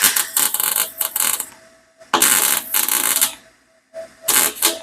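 Harbor Freight Titanium gas MIG welder arc crackling in three short bursts of stitch welding on a stainless steel exhaust header, the longest about a second and a half.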